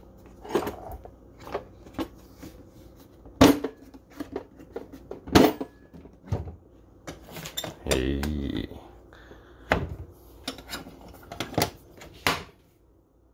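Hard plastic DeWalt ToughSystem tool boxes being handled and shifted: a series of sharp knocks and clacks, the loudest a few seconds in, with smaller clicks at a box latch near the end.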